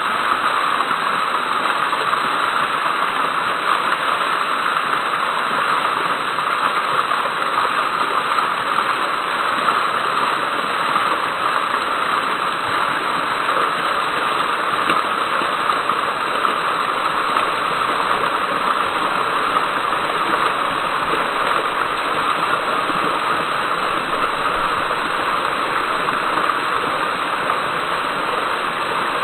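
Ornamental fountain with many water jets spraying up and splashing back down into its pool: a steady, unbroken rush of falling water.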